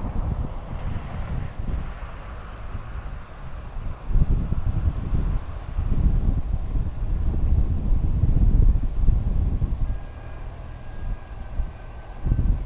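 Insects calling in a steady high-pitched chorus, with wind buffeting the microphone in gusts, strongest in the middle of the stretch.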